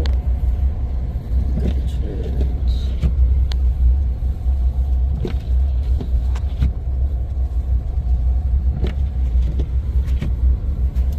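Steady low rumble of a vehicle driving, heard from inside, with a few faint clicks.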